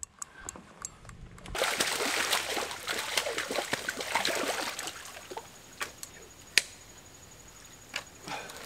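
Water splashing and sloshing as a person wades through shallow swamp water, with scattered small clicks and snaps. The splashing is loudest for a few seconds after the first second and a half, then dies down to a few sharp clicks.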